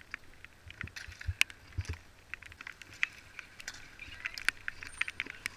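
Bicycles rolling over a wet tarmac court, with irregular sharp clicks and rattles and a few dull low knocks.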